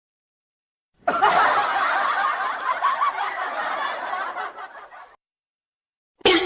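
Laugh-track sound effect: a group of people laughing for about four seconds, fading, then cut off abruptly. A short separate sound begins near the end.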